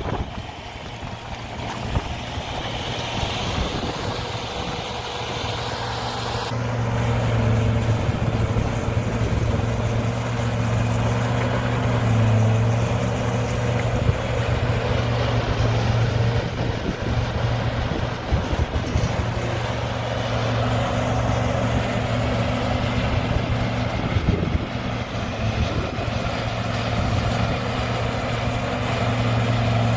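A vehicle engine running steadily, getting louder about six seconds in and staying loud.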